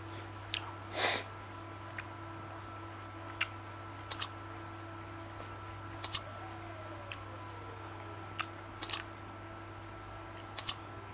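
Close-miked chewing of sushi: sharp wet mouth clicks, mostly in quick pairs about every two seconds, over a steady low hum, with a short noisy puff of breath about a second in.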